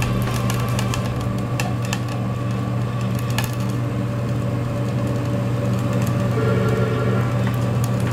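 Testing machine running with a steady hum as it presses down on a composite boat-hull panel in a breaking strength test. The bending panel gives a few sharp cracking ticks, the clearest about one and a half and three and a half seconds in.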